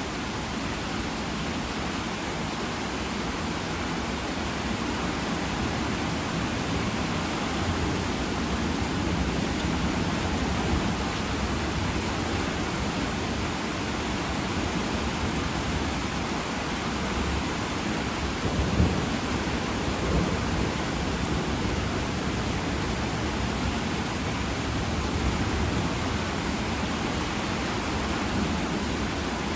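Heavy rain falling steadily, with low rolling thunder underneath and a sharper thunder clap about two-thirds of the way through.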